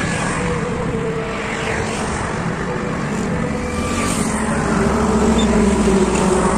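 Highway traffic passing: a steady drone of engines and tyres, growing louder about five seconds in as a heavy tanker truck drives close by.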